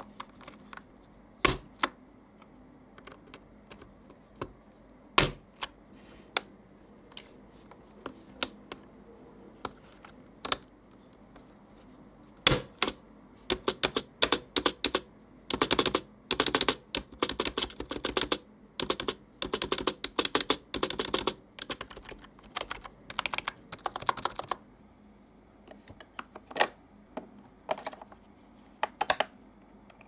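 Keycaps on an AJAZZ 308i keyboard snapped onto their switches one by one with sharp single clicks. About twelve seconds in comes a quick, dense clatter of key presses lasting about twelve seconds, then a few more scattered clicks.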